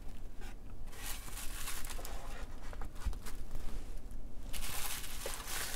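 Plastic bubble wrap rustling and crinkling as it is handled and lifted out of a gift box, in several uneven stretches with light crackles.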